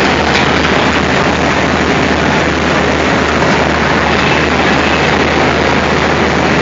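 Diesel locomotive engine running steadily close by: a loud, even rumble with a steady low hum underneath.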